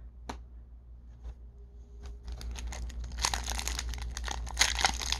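Foil baseball-card pack wrapper being torn open and crinkled, the crackling building from about two and a half seconds in. Before that come a few light clicks of cards being handled.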